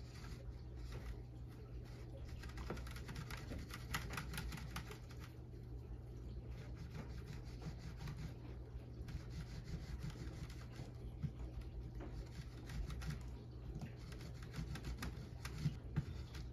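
Stencil ink applicator dabbed and rubbed across tennis racquet strings: irregular runs of light, rapid taps and clicks, over a steady low hum.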